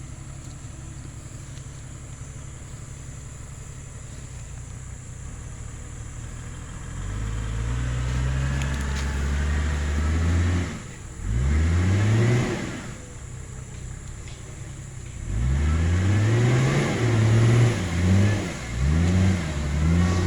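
A car engine running steadily at low revs, then getting louder and revving up and down several times in the second half: a 4x4 working its way up a muddy hill.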